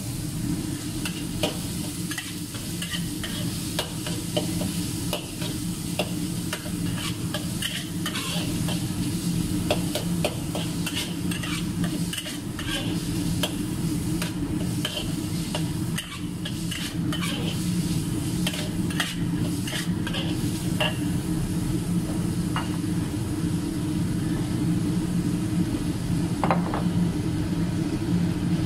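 Minced pork and red chili sizzling in a wok while a metal spatula stirs them, with frequent short scrapes and clinks of the spatula against the wok. A steady low hum runs underneath.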